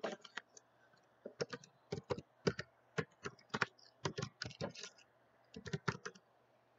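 Computer keyboard keys being typed in short, irregular runs of clicks.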